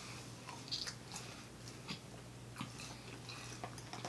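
A person chewing a mouthful of food close to the microphone: faint, irregular wet clicks and smacks, the strongest about three-quarters of a second in, over a faint steady low hum.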